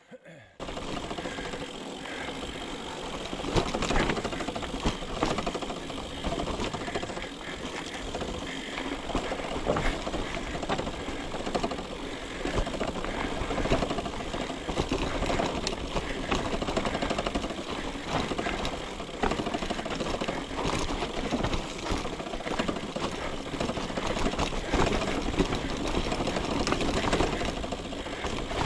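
Mountain bike clattering and rattling continuously as it rolls down a rough, rocky dirt trail: a dense run of small knocks and clicks over tyre and gravel noise.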